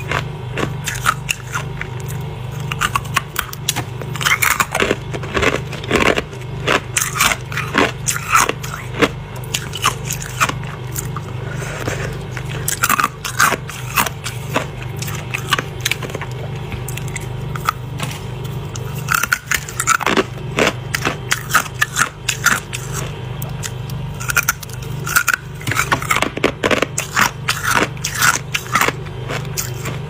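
Flaky freezer frost being bitten and chewed in crisp crunches, coming in clusters with short pauses, along with fingers scraping frost off a frost-covered humidifier. A steady low hum runs underneath.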